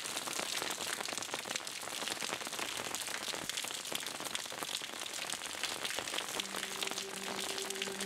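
Steady rain falling, a dense patter of drops. About six and a half seconds in, low sustained music notes come in under it.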